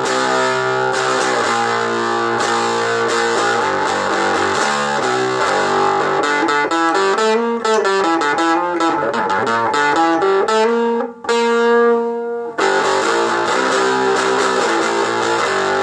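Electric guitar played through a small homemade 2.5-watt amp with an 8-inch Dean Markley speaker, distorted by a CB Gitty Psycho Knob overdrive pedal on one of its more intense settings. Chords and single notes are played without pause, except for a short break about eleven seconds in before a held chord.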